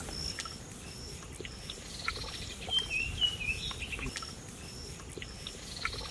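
Rural outdoor ambience: an insect chirping in a steady, regular pulse, a bird calling a short run of a few falling notes about three seconds in, and scattered faint clicks.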